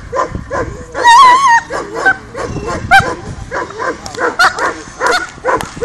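Black German Shepherd barking rapidly and excitedly on the leash, about three barks a second, as it drives at the helper in protection training. About a second in comes one longer, wavering high-pitched whine.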